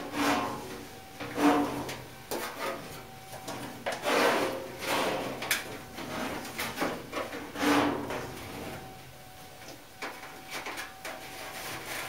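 Steel drum of a clothes dryer being tugged and shifted inside its cabinet: several long metal-on-metal scrapes and rubs with knocks in between. The drum will not slide out, still held by its drive belt.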